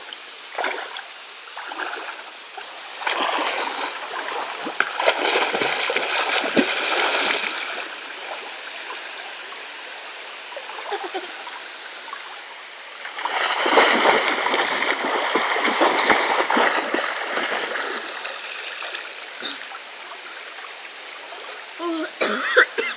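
A person wading and splashing in a shallow river, over the steady flow of the stream. The splashing comes in two long spells, about three seconds in and again about thirteen seconds in.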